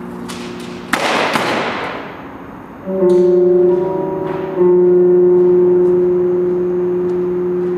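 Sound-art performance: steady droning tones, broken about a second in by a loud noisy crash that fades away. A louder chord of held tones then comes in around three seconds, and another builds on it at about four and a half seconds and holds.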